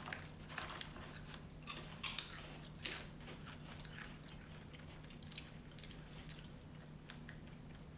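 Someone chewing peanut butter popcorn: irregular crisp crunches, thickest over the first three seconds, then sparser and fainter.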